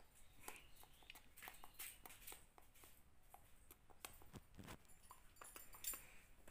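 Near silence in a small room, broken by faint scattered clicks and taps, with a pair of slightly louder soft knocks about four and a half seconds in.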